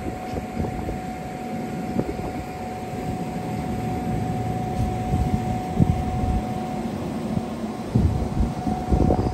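Amtrak passenger train's Amfleet coaches rolling along the platform: a steady low rumble with irregular low thumps, heaviest near the end, and a steady whine that stops about seven seconds in.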